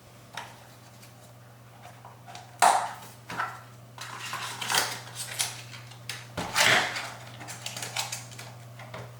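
Handling noise of a 2-inch astronomy filter and its packaging being unboxed: irregular sharp clicks, taps and rustles, the loudest about two and a half seconds in and again near seven seconds, over a steady low hum.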